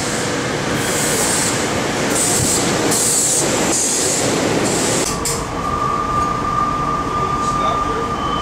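A SEPTA Silverliner IV electric train rolls in along an underground platform, rumbling, with a run of short high-pitched bursts from its wheels and brakes. About five seconds in, the sound changes to the inside of the moving car: a steady rumble with a constant whine.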